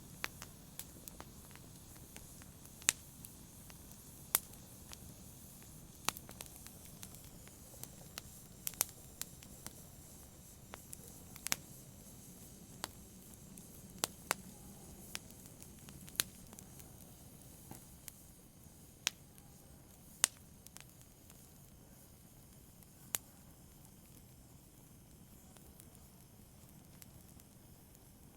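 Wood fire crackling in a fireplace: irregular sharp pops and snaps, one every second or two, over a faint low hiss of burning.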